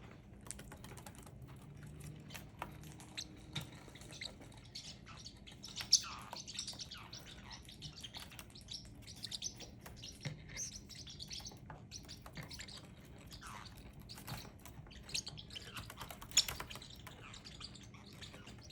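Parrotlets giving short, scattered high chirps among small clicks and scratches, with two sharper, louder calls about six seconds in and near the end; the birds are agitated in a squabble.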